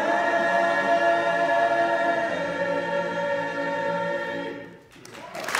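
Boys' choir singing a cappella, holding one sustained chord that fades and is cut off near the end. Applause starts right after the cutoff.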